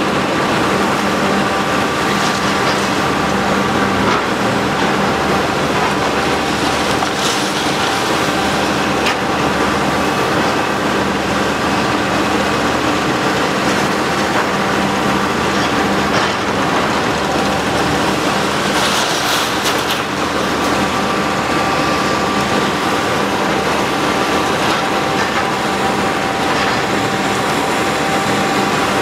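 Heavy demolition machinery tearing down a concrete building: a diesel engine running steadily with a hum, over continuous clatter and crunching of broken concrete debris. A louder burst of crashing debris comes about two-thirds of the way through.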